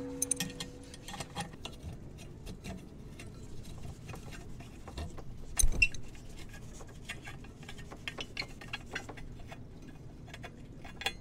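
Small metallic clicks and scrapes of an adjustable wrench and a screw extractor (easy-out) working a corroded bolt loose from a metal deck-rail fitting, with a short ringing clink at the start and a louder knock a little over halfway.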